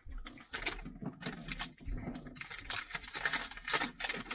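Plastic beef-stick wrapper crinkling and crackling as it is handled, a dense, irregular run of small crackles and clicks.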